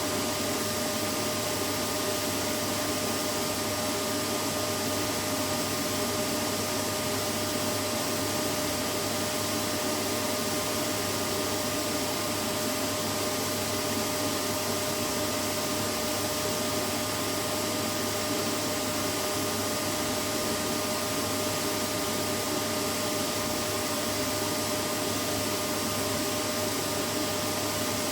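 Vacuum cleaner running continuously, a steady whooshing motor noise with a constant whine that never changes, used as white noise to lull a baby to sleep.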